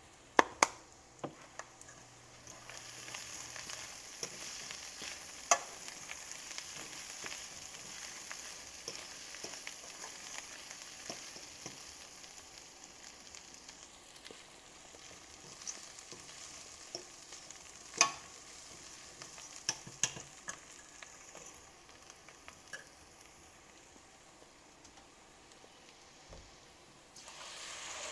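Lion's mane mushroom crumble with onions and peppers sizzling in a stainless steel pan, with a fork now and then clinking and scraping against the pan as it is stirred. Near the end the sound grows louder as canned black beans are poured in.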